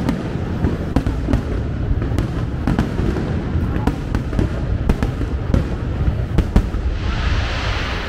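Fireworks going off: many sharp, irregular bangs over a low rumble, with a hissing burst about seven seconds in.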